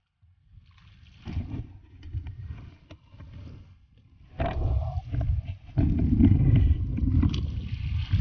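Wind rumbling on the microphone, in irregular gusts that grow louder in the second half, with water splashing and a few knocks as a hooked fish is gaffed and hauled over the side of a small boat.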